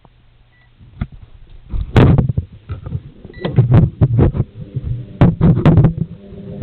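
Loud, irregular knocking and clattering, starting about a second in after a faint low hum.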